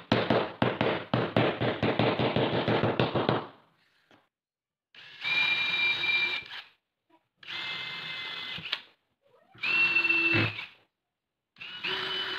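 Quick, light hammer taps on a wooden block, seating an aluminium T-track into a plywood fence, for about three and a half seconds. Then a DeWalt cordless drill/driver whines in four short bursts, driving screws through the track into the plywood, the third winding down in pitch as it stops.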